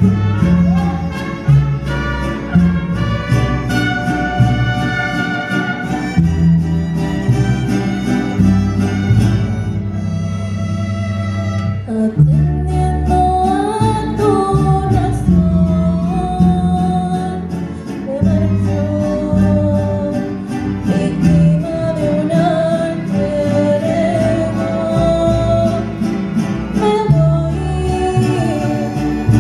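Live mariachi music: strummed vihuelas and guitars over a bass line play an instrumental passage, and about twelve seconds in a woman's solo voice enters singing the melody over the band.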